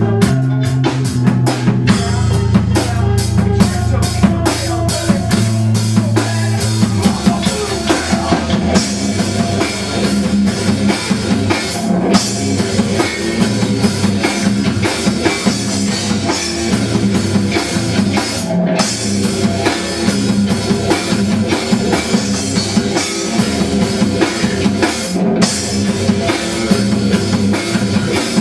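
Rock music with a drum kit and guitar. Held bass notes carry the first few seconds, then a busier, driving drum beat takes over about seven seconds in.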